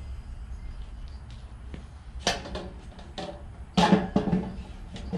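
A metal turkey-fryer pot knocking and clanking as it is handled and set onto its steel burner stand, several uneven hits with a short metallic ring, loudest near the end.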